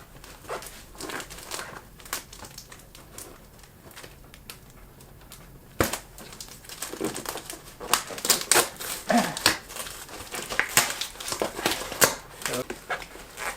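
A tightly packed package being pried open with a screwdriver: crinkling packaging and irregular clicks and scrapes, sparse at first, with one sharp click about six seconds in, then busier crinkling.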